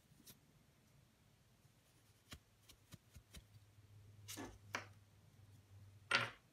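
Quiet clicks and short rubs of a metal sewing-machine bobbin case being brushed clean and handled, with a sharper metallic click about six seconds in, the loudest sound.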